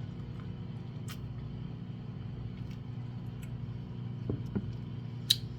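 Microwave oven running with a steady low hum while it cooks a cup of instant noodles. A few faint ticks, and one sharp click near the end.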